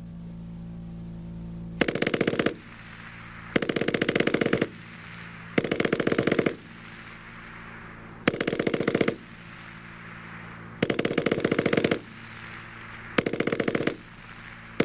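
MG-34 machine gun firing six short bursts of about a second each, with a second or so between bursts. Each burst is a fast, tightly packed rattle of shots from the gun's high cyclic rate of over 800 rounds per minute.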